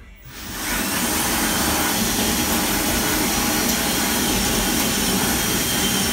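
Cordless drill running under load, boring into the van's sheet-metal panel: it builds up about half a second in, then runs as a steady grinding whine.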